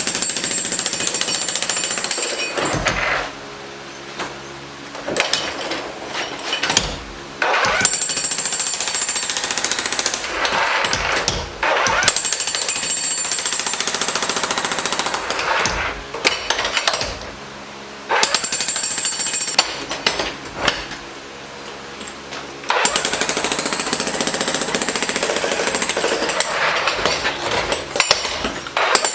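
Jackhammer chipping out concrete curbs in a run of bursts, each a few seconds of rapid hammering, with short pauses between them.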